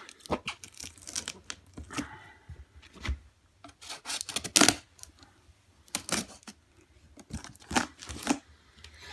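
A shipping box being torn open by hand: an irregular series of short ripping and scraping sounds from the packaging, the loudest about halfway through.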